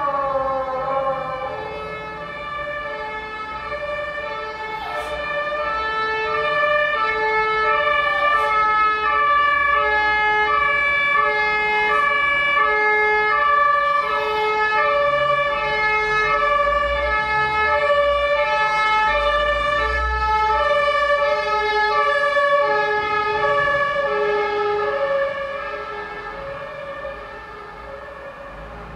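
Two-tone emergency-vehicle siren alternating steadily between two notes, growing louder over the first few seconds and fading after about 25 seconds as it passes. A few short falling wails sound over it in the first half.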